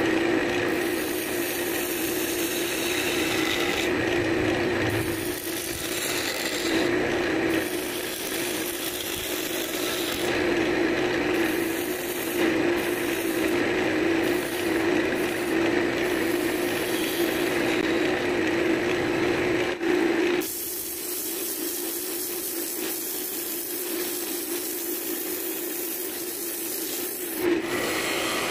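Wood lathe running with a steady hum while a hand-held turning tool cuts the spinning cherry-wood blank, a rough scraping cut that swells and fades as the tool moves. About two-thirds of the way through the sound changes abruptly to a steadier hiss over the lathe's hum.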